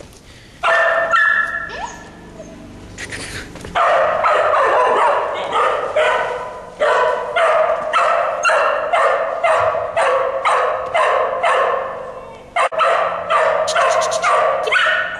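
A cow dog barking over and over in a fast, steady string of barks, about three a second, with a brief pause near the end before it starts again.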